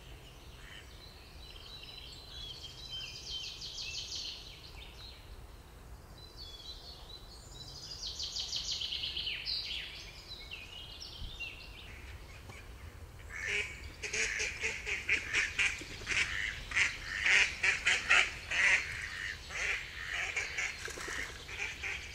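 Songbirds sing high trilling phrases, then about halfway through ducks break into loud quacking in rapid runs of calls that go on to the end.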